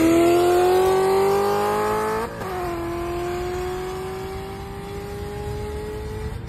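Car engine under hard acceleration, heard from inside the cabin. Its pitch climbs steadily through one gear, dips sharply in level and pitch at an upshift about two seconds in, then climbs again through the next gear until another shift at the very end.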